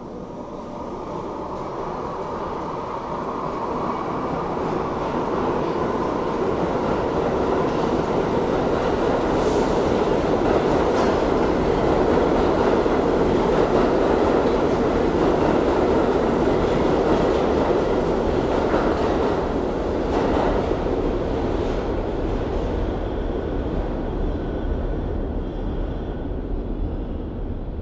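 New York City subway train of R62-series cars running past on a far track: a steady rumble and clatter of wheels on rail that builds over the first several seconds, holds, and eases off somewhat near the end.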